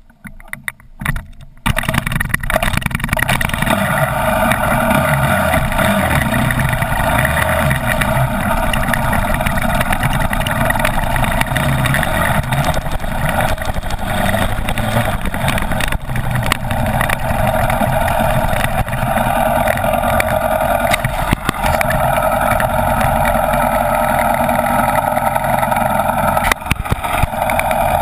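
Dirt bike engine running as the motocross bike is ridden, heard from a camera mounted on its front fender, mixed with a steady rush of noise. A few knocks come first, then the loud running sound comes in suddenly about two seconds in.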